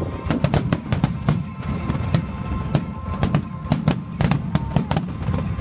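Aerial fireworks bursting in quick, irregular succession, several sharp bangs a second over a continuous low rumble, with music playing.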